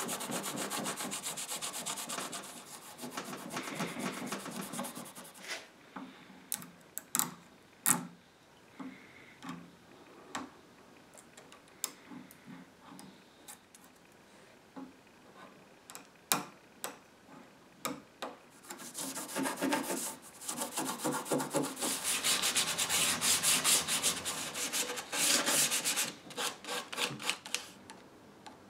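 A hand-held pad scrubbed back and forth over a finished wooden desk foot for about five seconds. This is followed by scattered light clicks and taps, then another long spell of rubbing late on, and a few more clicks near the end.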